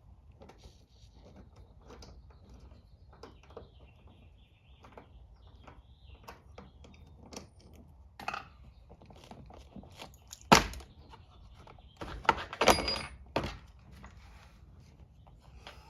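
Hand work on interior trim and its mounting bolts inside a pickup cab: scattered light clicks and taps of tool and plastic, then one sharp knock about ten and a half seconds in and a quick run of knocks a little later.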